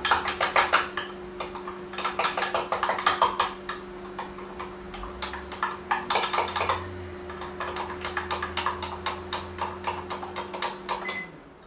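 Fork stirring egg and cheese in a glass measuring cup: rapid clinking of metal against glass, several strokes a second, coming in spells. Underneath, a microwave oven runs with a steady hum that cuts off near the end.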